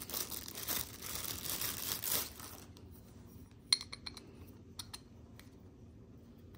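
Plastic packaging crinkling for about two and a half seconds, then one sharp click and a few lighter clicks as a gold candlestick's rod is set into and screwed onto its round base.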